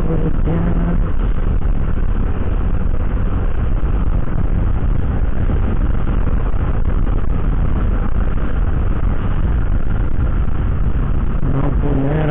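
Steady rush of riding noise from a Honda Vario 125 scooter on the move: wind buffeting the microphone over the engine and tyre noise, loud and even with no breaks.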